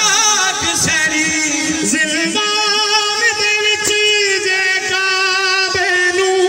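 A man sings a noha, a Shia lament, through a microphone and loudspeakers. The voice slides between notes at first, then holds long, wavering notes, with a few scattered thumps.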